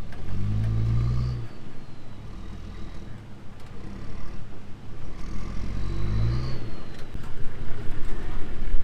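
A four-wheel drive's engine revving in two bursts, about a second in and again around five to six seconds, while it tows a camper trailer through soft sand, idling lower in between.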